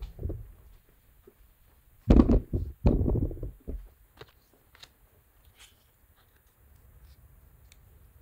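Handling noise: a dull thump at the start, then a run of loud low thumps and knocks about two seconds in as things are moved about on the table. Several light clicks and taps follow.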